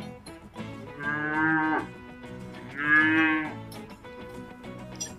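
Cow mooing twice, each call a little under a second long and about two seconds apart, the second louder, over soft background music.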